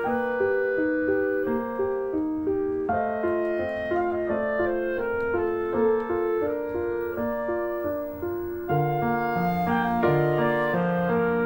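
Instrumental background music led by piano, playing a gentle melody; lower notes join in about nine seconds in.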